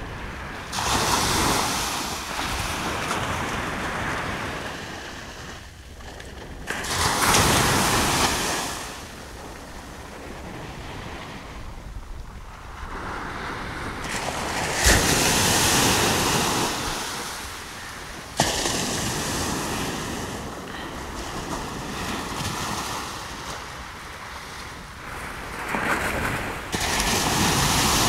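Sea surf breaking on a sandy beach: about five waves crash, each surging in sharply and washing up the shore before fading, a few seconds apart.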